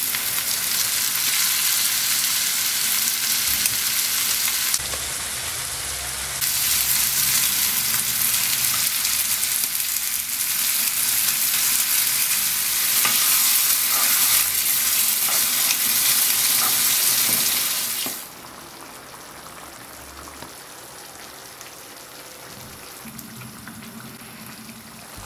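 Lamb mince, kidney beans and passata sizzling in a hot frying pan as the beans and then the passata go in. About eighteen seconds in the sizzle drops suddenly to a much quieter, steady hiss.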